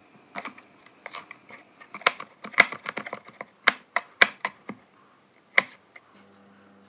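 Kitchen knife chopping a green chilli on a cutting board: a dozen or so irregular sharp taps of the blade striking the board, the loudest near the middle.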